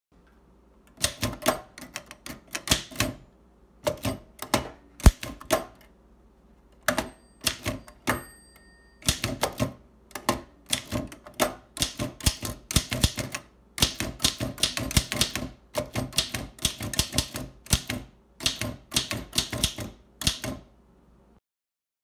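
Manual typebar typewriter typing: keys and typebars strike in quick bursts of sharp clacks with short pauses between words. A small bell dings once about eight seconds in.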